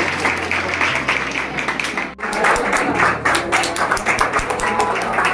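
A small group clapping by hand, with music playing underneath; the sound breaks off for a moment about two seconds in and then carries on.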